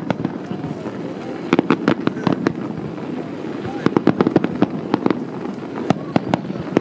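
Aerial fireworks bursting in rapid crackling bangs that come in clusters, over a steady murmur of spectators' voices.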